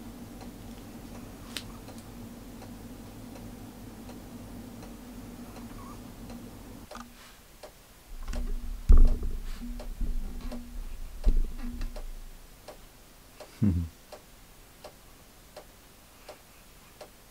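A clock ticking about twice a second, with a steady low hum that stops about seven seconds in. Midway a sleeping French bulldog, running in a dream, gives a few low thumps and rustles against her bedding, then a short sound falling in pitch.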